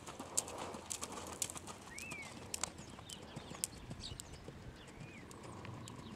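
A horse's hooves striking the sand arena footing as it moves toward a jump, with small birds chirping now and then.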